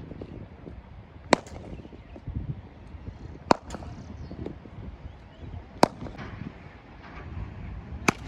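Cricket bat striking the ball four times, sharp cracks about two and a half seconds apart, each followed by a fainter click.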